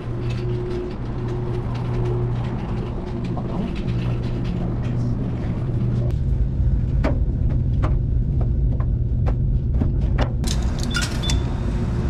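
Steady low hum of commercial laundromat washers and dryers running. It grows into a heavier rumble about halfway through, with a run of sharp clicks and knocks in the later seconds.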